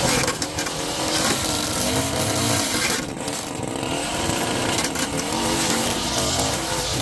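Small gasoline engine of lawn equipment running, its pitch wavering up and down.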